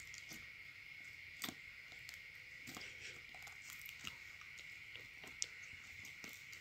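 Fingers kneading and pressing clear red slime mixed with crumbled eyeshadow and lipstick, making soft, scattered squishes and small clicks; the sharpest clicks come about a second and a half in and again near five and a half seconds.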